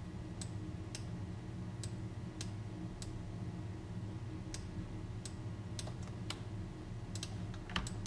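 Computer mouse and keyboard clicks during editing: single sharp clicks about every half second to second, with a quick cluster of clicks near the end, over a low steady hum.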